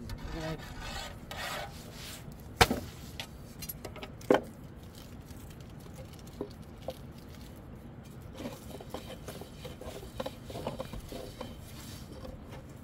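Scraping and rubbing, two sharp knocks about two and a half and four seconds in, then light scattered taps and clicks.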